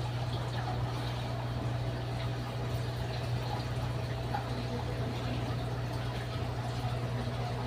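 Steady hum with water bubbling and trickling continuously, the sound of an aquarium tub's aeration or filter running.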